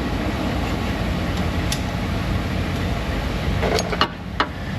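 Steady background noise with a low hum, and a few light clicks and knocks, mostly near the end, as a serpentine belt is worked by hand around the pulleys and idler.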